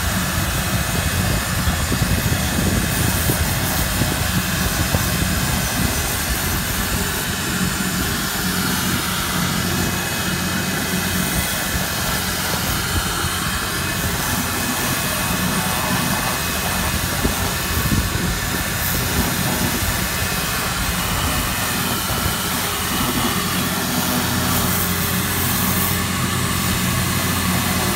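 Compact electric pressure washer running steadily: its motor-driven pump hums under the hiss of the water jet.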